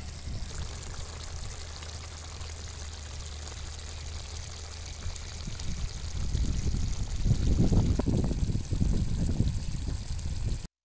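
Steady outdoor hiss with low, irregular rumbling gusts, typical of wind on the microphone; the gusts grow stronger about six seconds in, and the sound cuts off suddenly near the end.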